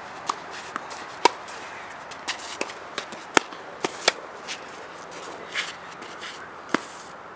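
Tennis rally: sharp pops of racket strings striking the ball, the near player's hits loudest, with quieter hits from across the net and ball bounces between them.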